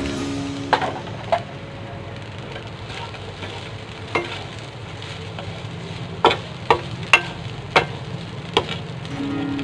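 Fried rice and bean sprouts sizzling in a nonstick pan while a wooden spatula stirs and tosses them, with about eight sharp knocks of the spatula against the pan, most in the second half.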